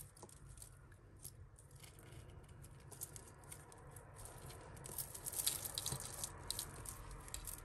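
Fine metal necklace chains and costume jewellery clinking softly as fingers work at a tangle: a scatter of light, irregular tinkles that thicken about five seconds in.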